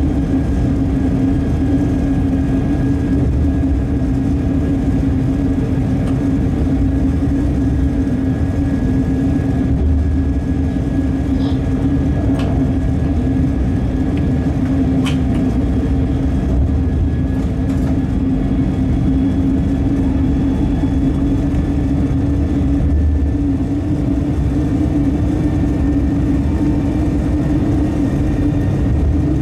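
Locomotive running alone at a steady line speed, heard from the cab: a constant hum over the rumble of the wheels on the rails.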